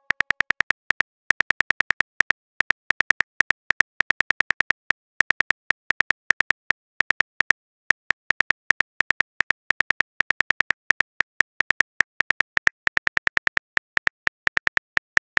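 Phone keyboard typing sound effect: a long, uneven run of short identical clicks, several a second with brief pauses, as a text message is typed out character by character.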